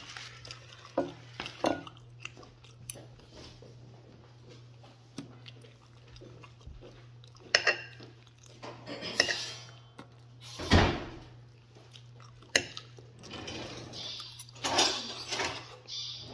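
Metal fork clinking and scraping on a ceramic plate while fish is picked apart and eaten, in irregular short clicks. A steady low hum runs underneath.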